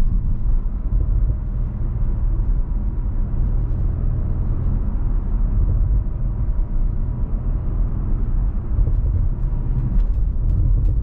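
2015 Audi RS6 Avant's twin-turbo V8 running at a steady cruise, a constant low rumble of engine and road noise. A few faint clicks near the end.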